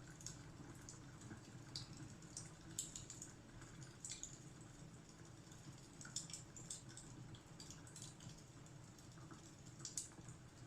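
Faint wood fire crackling in a fireplace: irregular sharp snaps and pops, a few louder ones, over a steady low rumble.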